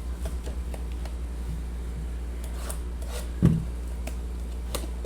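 Trading card packs and cards being handled: light rustles and small clicks over a steady low electrical hum, with one thump about three and a half seconds in.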